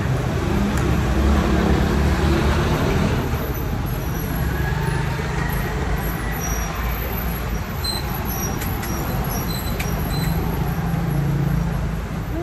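Street traffic going past: a steady rumble of vehicle engines and road noise, with engine hum swelling and easing as vehicles pass.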